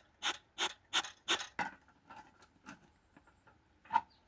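Bee smoker bellows being pumped by hand, each squeeze pushing a puff of air through the smouldering sack fuel to get the smoke going: about three puffs a second for the first second and a half, then a pause and one more puff near the end.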